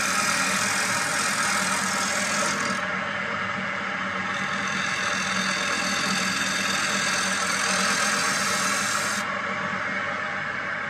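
Wood lathe running with a turning tool cutting across the face of a spinning ash disc: a steady rough cutting noise over the lathe's low hum. The cutting noise drops away about nine seconds in as the tool comes off the wood, leaving the lathe running.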